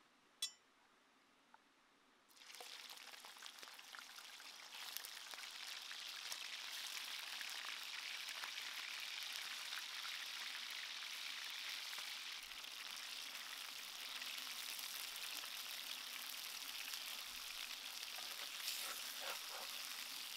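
Chicken pieces frying in hot oil in a clay pan: a steady sizzle that starts suddenly about two seconds in and gets louder at about five seconds. Before it there is near quiet with one sharp click.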